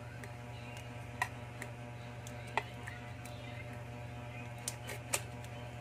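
Faint, scattered clicks and scrapes of metal tweezers picking leftover glue and broken glass off a Realme C11's metal mid-frame, over a steady low hum.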